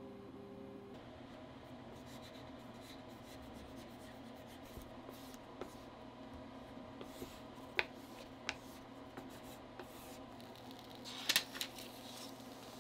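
Plastic screen protector film being applied to the LCD screen of an Elegoo resin 3D printer: soft rubbing and scraping as it is pressed and smoothed down, with a few small clicks and a cluster of louder handling clicks near the end. A steady low hum runs underneath.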